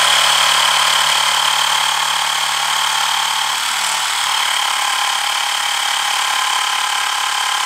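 Xiaomi portable electric air inflator's compressor running steadily at full load, a loud even buzz with a steady high tone, its nozzle held shut by hand. It keeps running without cutting off because a hand cannot hold back enough air for the pressure to reach the 73 PSI set point.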